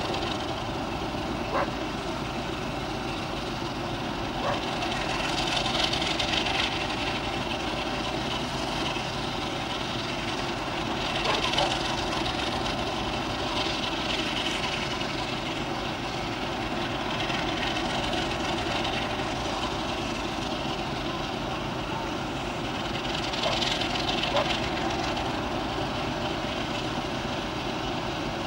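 CP Alco diesel locomotive's 12-251 engine idling steadily, with a few faint clanks and short swells of hiss now and then.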